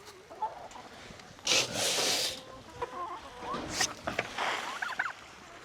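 Chickens clucking in short calls, with a loud rustle lasting just under a second about one and a half seconds in.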